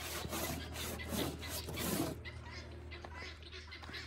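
Stiff brush scrubbing the inside of a water trough in quick repeated strokes, which stop about two seconds in.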